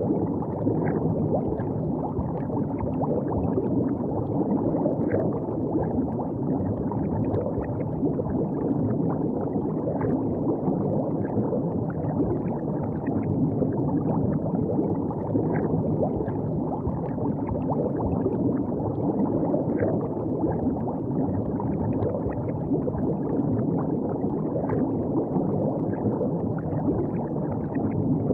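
River water flowing and gurgling steadily at the bank, a dense low-pitched wash with small splashes and trickles ticking through it.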